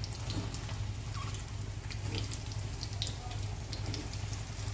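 Potato cubes deep-frying in hot oil: a steady sizzle with scattered small crackles, over a low steady hum.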